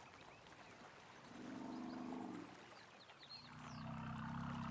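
Two low elephant rumbles: a shorter one about a second in and a longer, deeper one from about three seconds in. Faint bird chirps over them.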